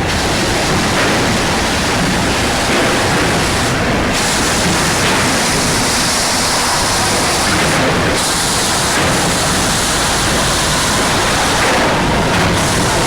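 Industrial sanding conveyor machine running with a loud, steady hiss. The hiss briefly thins at the top a few times, about every four seconds.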